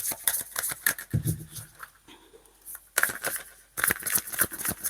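A deck of tarot cards being shuffled by hand: quick runs of flicking, slapping card sounds, easing off about two seconds in, then a dense burst of shuffling about three seconds in.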